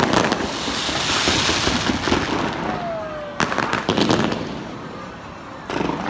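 Aerial fireworks going off: three clusters of sharp bangs and cracks, one at the start, one about halfway through and one near the end, with a crackling hiss of sparkling shells between them.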